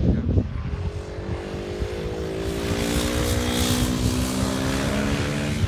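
Sport motorcycle engine running as the bike rides along the track, its steady note falling slightly in pitch, over a low rumble.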